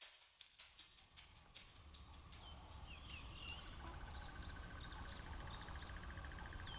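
Faint bush ambience: birds give several short, high chirps, and from about halfway an insect trills in a fast, even pulse, over a low rumble.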